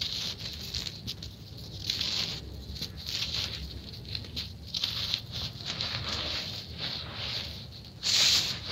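Dry sand-and-cement clumps crushed and crumbled in bare hands, a run of short gritty crunches with grains trickling onto the heap on a woven plastic tarp. About eight seconds in, a louder scraping rush as the hands press and sweep across the sand.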